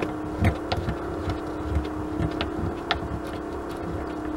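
Small clicks and handling noises as fingers unscrew the drain plug at the bottom of a Racor R12P fuel filter's water-separator bowl, with a steady hum underneath.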